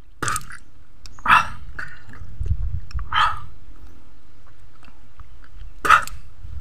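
A man coughing and sputtering out water in four short, harsh bursts, spaced one to three seconds apart.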